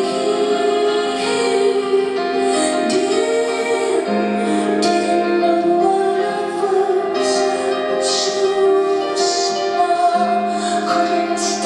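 Live music: a woman singing over long, held chords.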